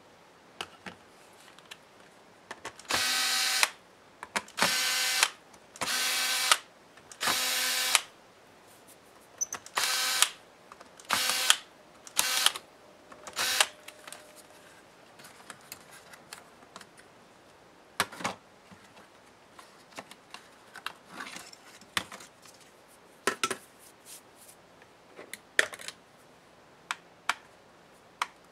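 Small electric screwdriver running in eight short bursts as it backs out the laptop heatsink's screws. The first four runs last under a second each and the last four are shorter. Then come scattered light clicks and taps of small parts being handled.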